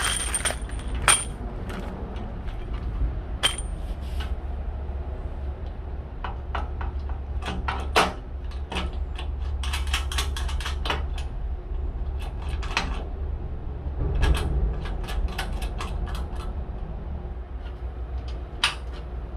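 Irregular metal clinks and knocks as steel stove parts and bolts are handled and fitted, over a steady low hum.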